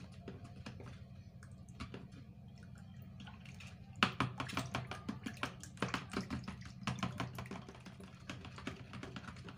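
Metal spoon stirring Texapon and sulfonic acid into water in a plastic bowl, knocking and scraping against the bowl in quick, irregular clicks that get louder and busier from about four seconds in.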